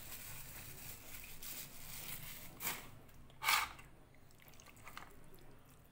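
Hands working raw chicken pieces in a steel bowl: faint wet squelching, with two short louder swishes a little before and a little after the middle.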